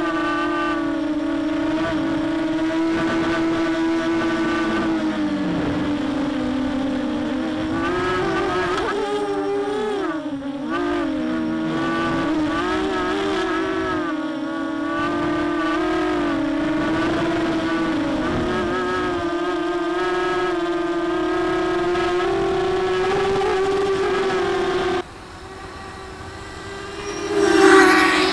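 Mini Mamba 250-size quadcopter's motors and propellers whining in flight, heard close up from the craft itself, the pitch rising and dipping as the throttle changes. Near the end the sound drops to a distant hum, then swells loudly for a moment as the quad passes close by.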